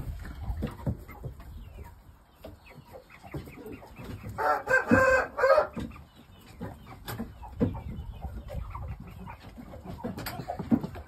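Young Shamo game chickens clucking in their pen, with one crow about a second long midway.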